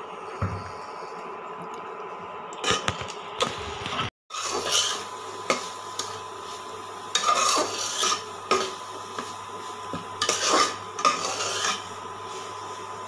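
A metal spoon stirring and scraping grated carrots in a cooking pan, with irregular clinks and scrapes of the spoon against the pan. The sound cuts out for a moment about four seconds in.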